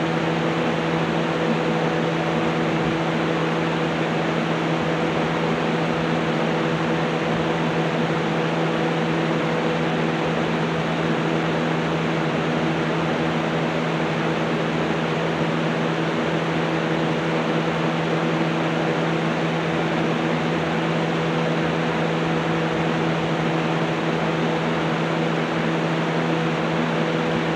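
Electric fan running loud and steady: an even rushing of air with a constant motor hum underneath.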